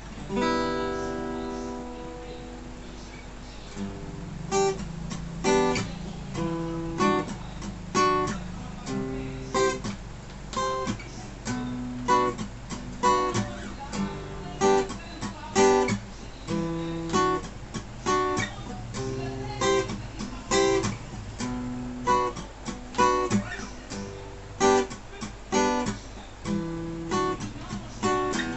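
Sqoe Cranberries 41-inch acoustic-electric guitar played through an amplifier. A single strummed chord rings for about four seconds, then chords are strummed in a steady rhythm, with a low amplifier hum underneath.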